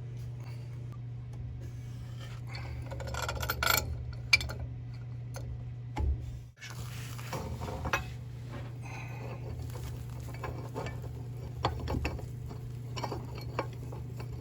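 Clusters of metallic clicks and scraping from a wrench turning a replacement valve onto its threaded, doped pipe. They come in three bursts over a steady low hum.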